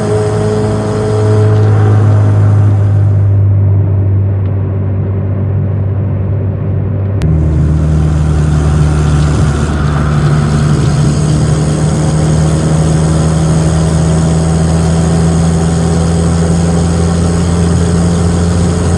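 Car engine and aftermarket exhaust with an electronic cut-off, droning steadily while driving. About seven seconds in there is a click and the exhaust note changes abruptly: the low drone shifts and the sound turns louder and fuller from then on.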